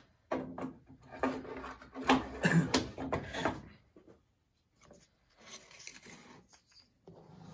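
Wooden pieces sliding, scraping and knocking on a steel table-saw top as they are set into place, busiest in the first few seconds, then quieter handling.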